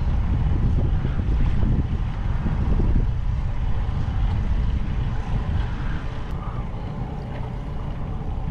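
Wind buffeting the microphone aboard a small boat at sea: a steady low rumble that eases a little in the second half.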